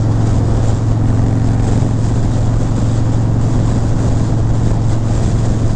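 Harley-Davidson Breakout's V-twin engine running steadily at highway cruising speed, a constant low tone mixed with wind and road noise over the microphone.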